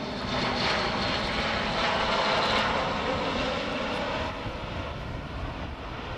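Airbus A400M Atlas's four Europrop TP400-D6 turboprops running at display power as the aircraft flies past. The loud rushing drone swells over the first two or three seconds, then falls away about four seconds in.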